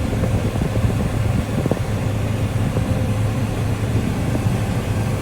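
Combine harvester running steadily at work, a constant low engine hum with a few faint clicks.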